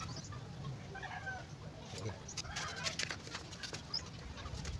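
Short animal calls, several scattered through, over a low background rumble.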